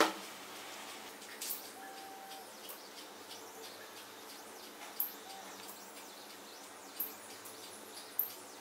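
Stepper motors of a small Arduino GRBL pen-plotting CNC machine, faintly whining in short chirps that rise and fall in pitch as the pen writes on masking tape, with a sharp click every second or few.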